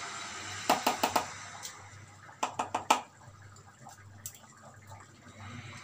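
A spoon tapping against the rim of a container to knock off tinned tomato paste. The sharp knocks come in quick clusters, four about a second in and several more near the middle, with a single tap later.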